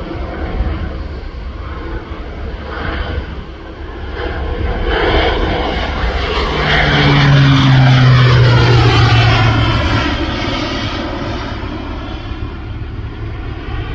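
Crop-dusting airplane's engine and propeller passing low, growing louder to a peak about seven to nine seconds in, its pitch dropping as it goes by, then easing off.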